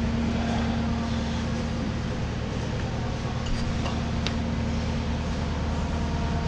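Kubota SVL75-3 compact track loader's turbo diesel engine running steadily with a constant hum, and a faint click about four seconds in.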